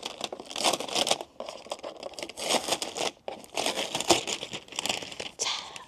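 Plastic film wrap on a fruit gift box crinkling and tearing as it is pulled open by hand, in an uneven run of crackly rustles.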